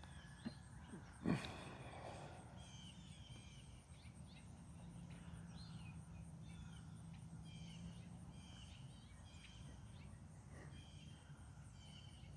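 Small songbirds chirping and twittering faintly, many short notes repeating, with a brief knock a little over a second in.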